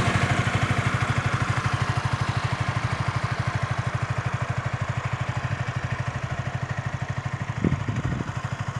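Yamaha R15 V3's single-cylinder engine idling through its stock exhaust, with a steady, even pulse. A few short low knocks come about three-quarters of the way in.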